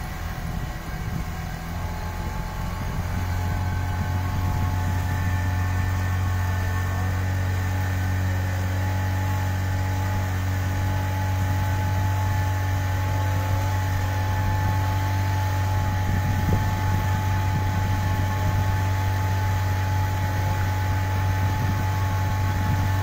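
Speedboat engine running steadily under way, a constant low drone that grows a little louder in the first few seconds and then holds.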